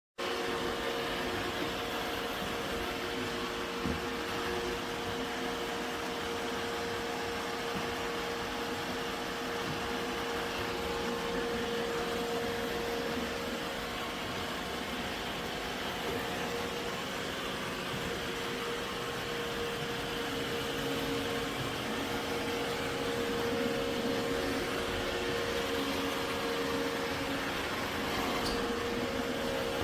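iRobot Roomba Combo i5 robot vacuum running while cleaning: a steady motor whir with a constant whine.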